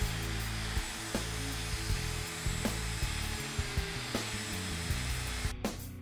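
Plunge router running steadily as it cuts a mortise in a recycled jarrah hardwood stretcher, guided along a mortising jig. The sound cuts off abruptly near the end.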